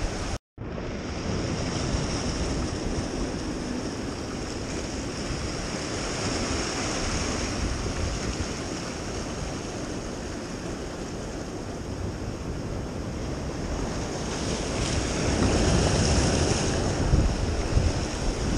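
Sea surf washing and breaking against the rocks of a jetty, with wind rushing over the microphone. The sound cuts out completely for a moment about half a second in, and the surf swells louder over the last few seconds.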